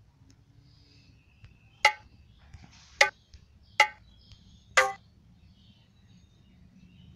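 Dholki drum samples previewed one at a time: four single ringing strokes, about a second apart.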